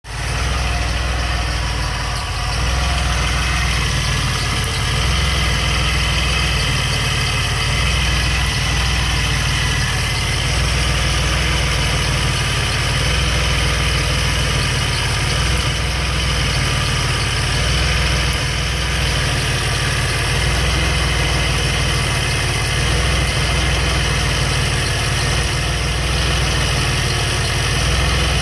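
DeLorean DMC-12's PRV V6 engine idling steadily, with a strange ticking that the owner traces to the distributor.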